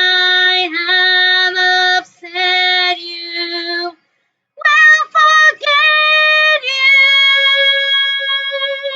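A woman's voice singing the final sustained notes of a song, breaking off about four seconds in, then holding a long high note with vibrato that fades near the end.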